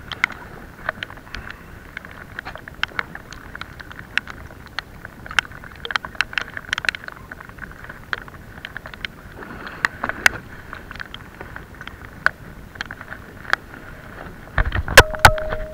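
Shimano Sienna spinning reel being cranked in short stretches while jigging, a light gear whirr that comes and goes, with scattered clicks and knocks throughout. A heavy thump near the end.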